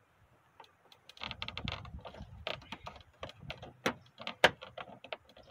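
Irregular plastic clicks and knocks from the inside door handle assembly of a 2003 Toyota Tundra's door panel being worked by hand, pressing its retaining latch clips to free it. The sharpest click comes about four and a half seconds in.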